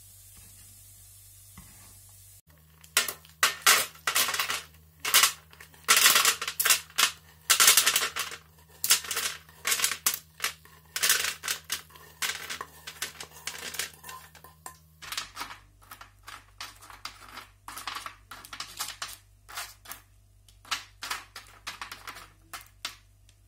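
Sugar-coated candied almonds clattering against a pan and onto a paper-lined baking sheet as they are tipped out and spread: a rapid, irregular rattle of many small hard hits. It starts about two seconds in, is loudest in the first half and grows lighter near the end.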